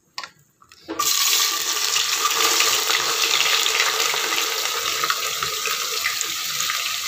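Sliced onions dropped into hot oil in a pressure cooker, setting off a loud, steady sizzle that starts suddenly about a second in, just after a short knock.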